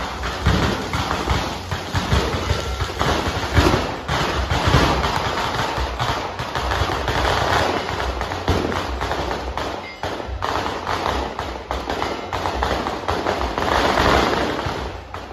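Dense, rapid crackling of a long string of firecrackers going off, loud throughout and easing off at the very end.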